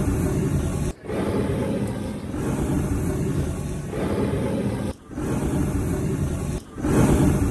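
Gas blowtorch burning with a steady, loud rushing noise as its flame singes the wool off a sheep's head; the noise breaks off briefly a few times.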